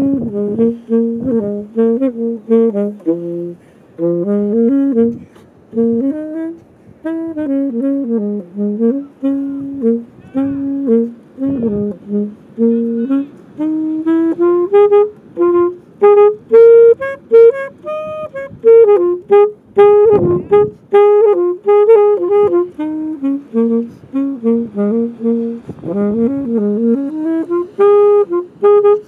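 Instrumental background music: a jazzy wind-instrument melody played in quick, separate notes.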